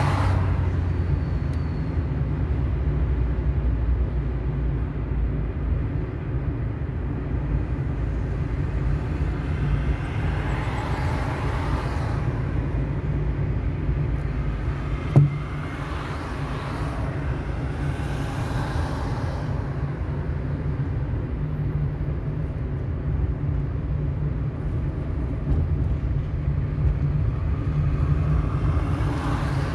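Car driving along a city street: a steady low road and engine rumble, with swells of noise from traffic passing several times. A single sharp knock comes about halfway through.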